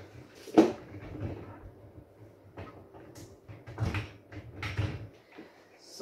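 Plastic clicks and knocks from a Bosch Series 2 dishwasher's spray arms being unlocked and lifted out. One sharp click comes about half a second in and is the loudest, followed by scattered lighter knocks and clatters.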